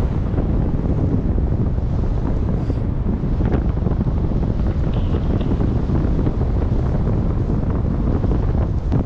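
Wind buffeting the microphone: a loud, steady rushing that is heaviest in the low end.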